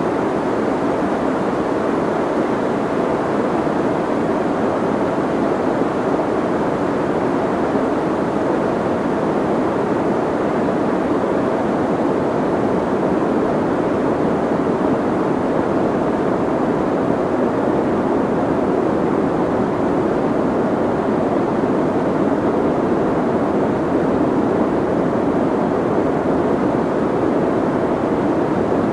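Soft white noise: a steady, unchanging rushing hiss, muffled so that most of it sits in the low-middle range with little treble.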